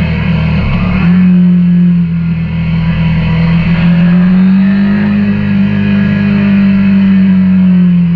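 KTM 890 Duke R's parallel-twin engine running at steady cruising revs while riding, heard with wind and road noise. Its pitch shifts briefly about a second in, then rises a little and eases back.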